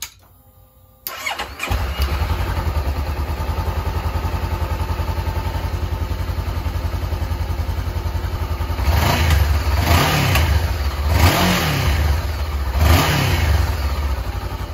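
Honda CBR500 parallel-twin engine cranked on the electric starter, catching after under a second and idling steadily, then blipped four times in its second half, each a short rise and fall in revs. It is being run on fresh oil to bring up oil pressure after an oil change.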